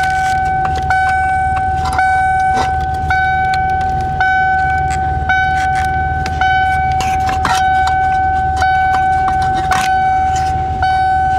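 A Ford Explorer's dashboard warning chime dinging over and over, a new ding about once a second while the tone rings on without a break between strikes.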